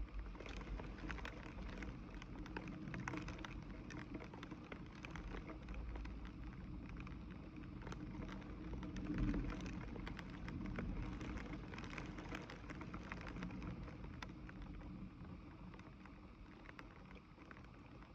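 Rain falling steadily: a constant hiss dotted with many separate drop ticks, over a low rumble, swelling slightly about halfway through.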